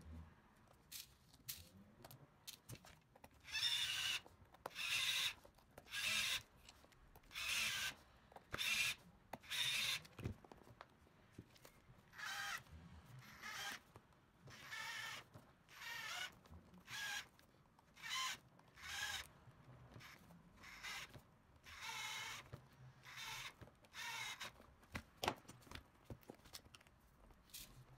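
Cordless drill-driver whirring in short bursts, about one a second, driving the small screws that fasten an aluminium beadlock ring to a scale RC crawler wheel, with a sharp click near the end.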